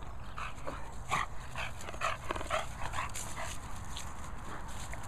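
English Bulldog giving a quick run of about ten short, high excited yelps and whines in its first three seconds or so, then falling quiet.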